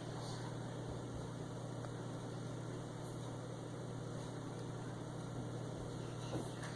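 A steady low hum with faint background hiss, and a faint click near the end.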